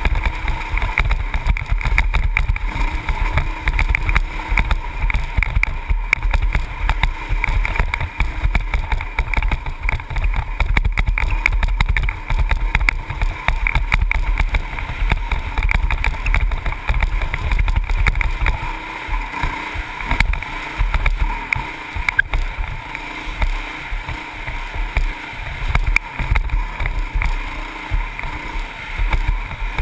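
Honda CRF450X single-cylinder four-stroke dirt bike engine running under way on a trail, heard from a helmet-mounted camera. Wind buffets the microphone heavily throughout.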